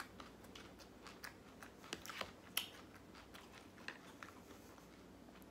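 Faint, irregular clicks and light crackles of plastic takeout food containers being handled, opened and set down.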